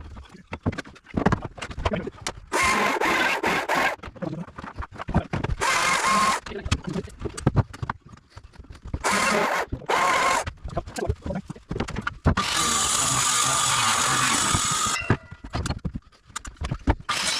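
A power tool runs in four bursts, the longest about two and a half seconds near the end. Many sharp knocks and bangs come in between.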